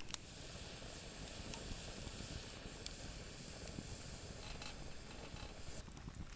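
Steady high-pitched chorus of autumn insects, with a few faint crackles, cutting off abruptly near the end.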